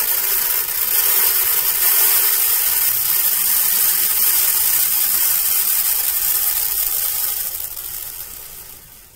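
A steady stream of threshed grain pouring from a plastic bowl and pattering down in a continuous hiss, thinning out and fading near the end as the bowl empties. This is winnowing: the grain is dropped through the wind so the chaff blows away.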